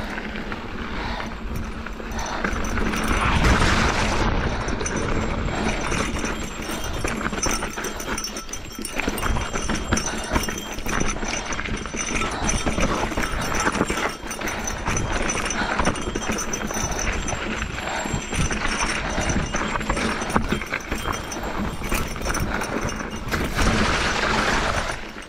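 Custom-built Esker Japhy single-speed mountain bike rolling fast over a rocky dirt trail: a steady crunch of tyres on dirt and stones with constant rattles and knocks as the bike bounces over rocks, heaviest about three seconds in and again near the end.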